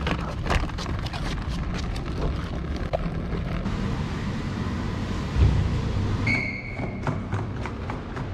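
RV cassette toilet tank rolling on its small wheels, a rattle of clicks over a low rumble. A thump comes about five seconds in, then a brief high squeak.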